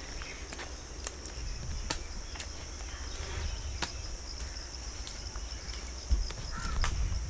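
A steady high-pitched insect drone, with scattered sharp clicks over it and low rumbling thumps near the end.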